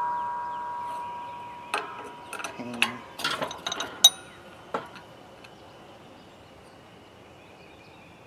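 Metallic ring of a cast-iron engine block in a hydraulic shop press fading away over the first second or so, the tail of a clang as the seized piston jumps under the press. Then a scatter of short metal clicks and clinks from about two to five seconds in as the press's jack handle and pusher bar are handled.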